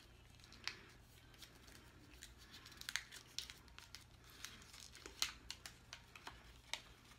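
A candy wrapper being torn and crinkled open by hand: faint, irregular sharp crackles.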